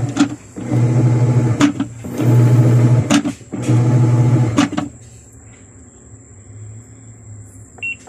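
LG top-load washing machine's motor and newly fitted gearbox (clutch) drive the pulsator back and forth in about four one-second strokes, a steady hum with short pauses between them. The strokes stop about five seconds in. The owner judges the machine to be working properly again.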